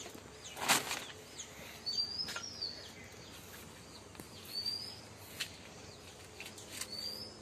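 Small bird chirping: short rising chirps, a handful of times a couple of seconds apart, over steady outdoor background noise. A short sharp noise stands out about a second in.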